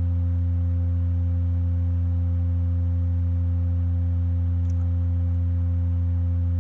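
RUMUL Testronic resonant fatigue testing machine running at its resonant frequency of about 87 Hz, a steady loud hum with overtones, as it cycles a cracked aluminium specimen under load.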